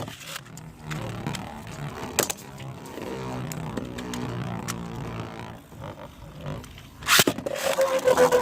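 Beyblade spinning tops running and scraping around a stadium floor with a rough, grinding noise. About seven seconds in comes a loud short rasping burst, followed by a steady whine that slowly drops in pitch as a top spins down.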